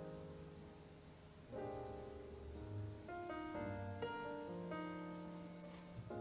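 Background piano music, with a new chord or note struck every second or so.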